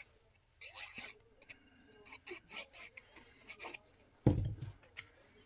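Cardstock pieces rustling and sliding as they are handled on a table, with light taps, and one dull thump about four seconds in.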